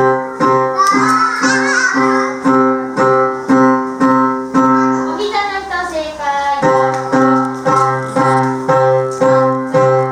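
Music played on a piano or keyboard: chords struck in a steady beat, about every 0.6 seconds, with a falling glide about halfway through.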